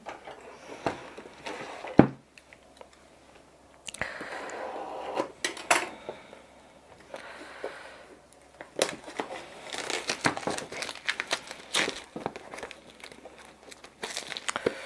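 Clear plastic shrink-wrap being picked at, torn and peeled off a cardboard box, crinkling in irregular stretches, with one sharp knock about two seconds in.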